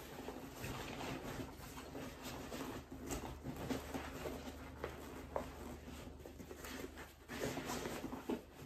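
Fabric rustling and shuffling of a The North Face Borealis backpack as an item is pushed down inside it, with scattered small knocks and scratches.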